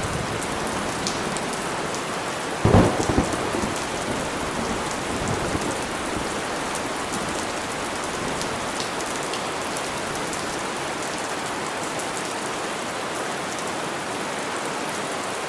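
Steady rain falling, with a short rumble of thunder about three seconds in.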